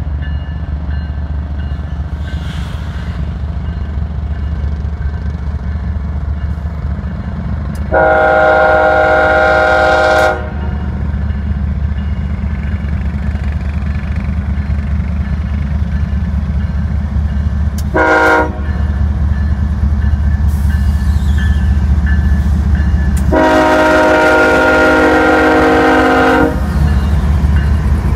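Kansas City Southern diesel locomotive sounding its multi-note air horn as it leads a freight train past: a long blast, a short one, then another long one, the pattern that ends a grade-crossing signal. A steady low rumble of the diesel locomotives runs underneath.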